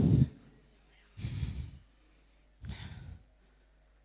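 A person's heavy breaths or sighs, three short puffs each under a second, with near silence between them.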